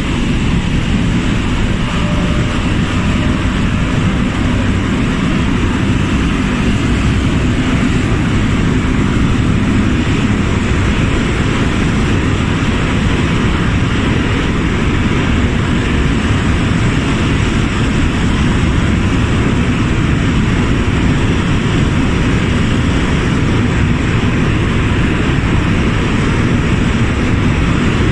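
Motorboat under way, its engine running steadily with water rushing in the churning wake.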